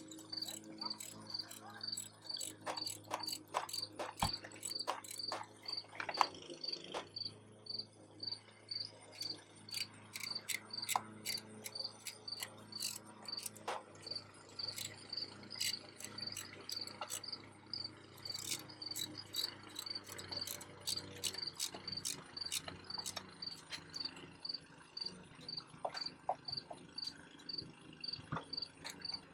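A cricket chirping steadily, a high chirp repeating about three times a second, with scattered clicks and knocks of handling.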